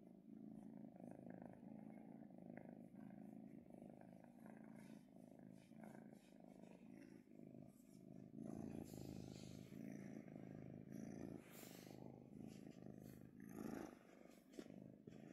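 Kitten purring softly and steadily while being stroked, with soft rustling of the hand on its fur from about eight seconds in.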